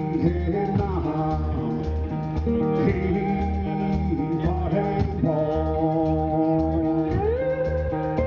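Live country-blues music: a resonator guitar picked hard, with notes bent and slid up the neck (a rising slide near the end), over a steady low beat, with a voice singing in places.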